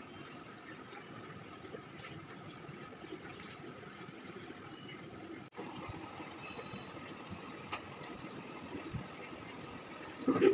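Steady engine-like background rumble with a faint constant tone, broken briefly about halfway through; a short loud knock near the end.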